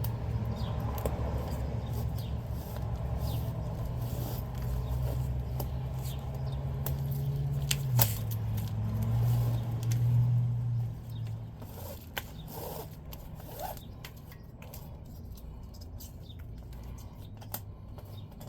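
Clicks and scraping from a ratchet strap being handled and loosened around a mini bike tire, with one sharp click about eight seconds in. A low steady hum runs underneath and stops about eleven seconds in.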